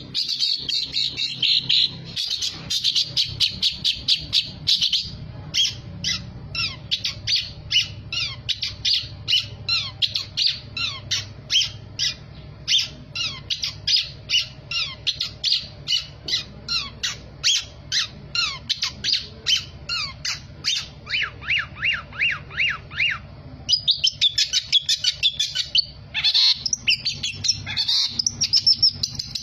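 Caged long-tailed shrike (cendet) singing nonstop: a fast series of sharp, high chips and squawks at about three a second, with denser chattering runs at the start and near the end. The song is full of mimicked calls of other birds.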